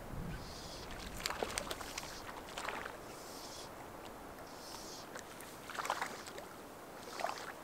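Lake water lapping against the rocky shoreline at the water's edge, with several sharper slaps of small waves.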